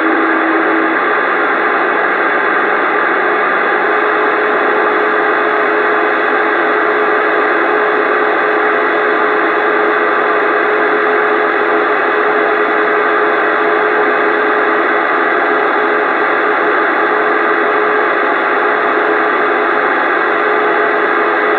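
CB radio receiver hissing with loud, steady static on a channel held open by a carrier, with a thin steady whistle tone running through it from about four seconds in to near the end.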